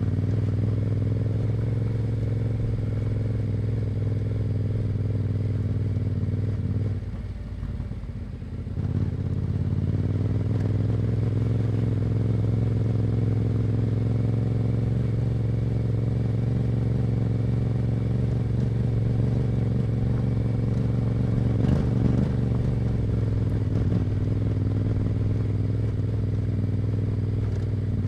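Yamaha Ténéré 700's parallel-twin engine through an Akrapovic exhaust, running at a steady pitch under way. About seven seconds in it drops off for a second or two, then picks up again and holds steady, with a brief knock about two-thirds of the way through.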